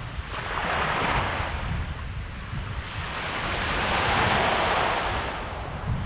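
Small waves breaking on a sandy beach and washing up the shore: two swells of surf hiss, one about half a second in and a longer one from about three seconds, each rising and fading. Under them, a low rumble of wind on the microphone.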